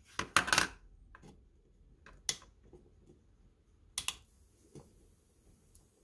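Sharp clicks and snaps from a hand-built high-voltage capacitor charger, a cigarette-lighter ignition coil module with a toggle switch, as it is switched and run. A quick cluster comes in the first second, then single snaps about two and four seconds in.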